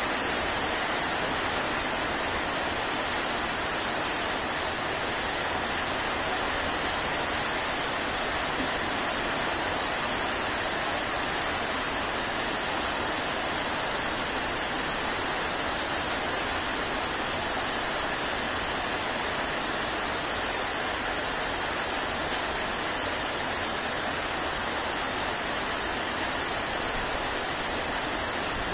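Steady rain falling on trees and banana leaves: an even, unbroken hiss.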